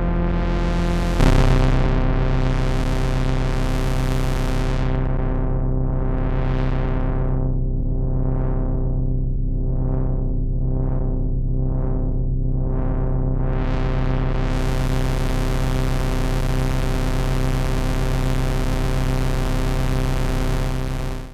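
Roland System-500 analogue modular synthesizer holding a buzzy, overtone-rich note that steps to a lower note about a second in. The filter then sweeps closed and open again and again, the sweeps coming about once a second near the middle, before it opens fully and the note stays bright. The sound drops away at the very end.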